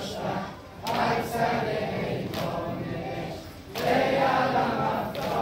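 Group of male voices singing a Persian noha, a Shia lament, together in unison, in phrases of a second or two with short breaks between them.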